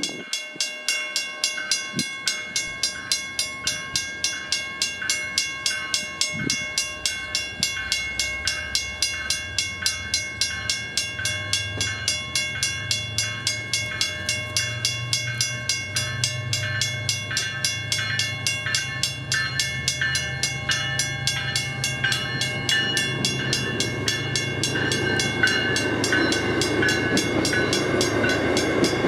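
Railroad crossing bell, a Western-Cullen-Hayes first-generation electronic bell, ringing steadily at about three strokes a second. About eight seconds in, a train's low rumble comes in and grows louder toward the end.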